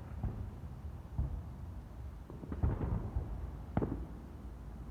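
Distant fireworks shells bursting: a scattered series of low, muffled booms, with sharper cracks near the end.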